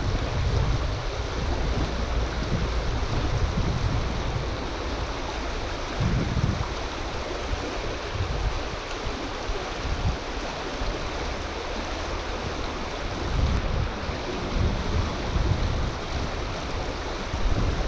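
Shallow river water running steadily over rocks, with gusts of wind buffeting the microphone.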